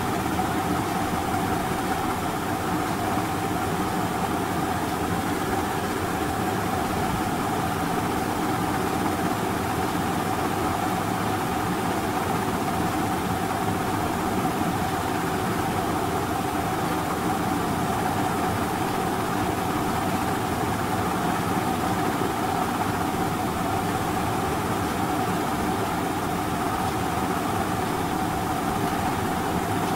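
Steady machine hum with one constant mid-pitched tone over an even hiss, unchanging throughout.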